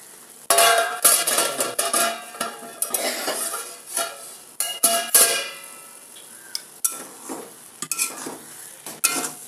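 Steel utensils clinking and ringing against a steel kadhai, loudest in the first few seconds, then lighter scraping clicks as a steel spoon stirs vermicelli simmering in milk.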